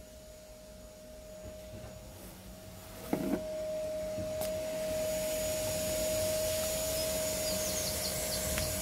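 A steady motor whine with a hiss of air, getting louder after a short knock about three seconds in.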